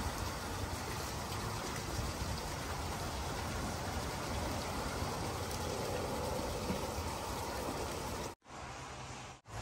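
Steady splashing and trickling of water in a pond crowded with turtles. The sound cuts out abruptly near the end.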